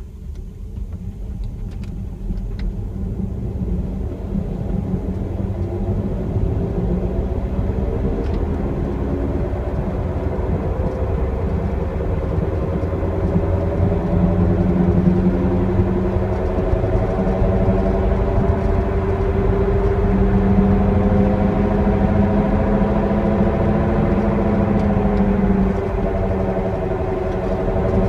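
2008 BMW 325i E91 Touring on the move, with a low rumble and a whining noise from the rear whose pitch climbs slowly as the car gathers speed, drops briefly near the end, then climbs again.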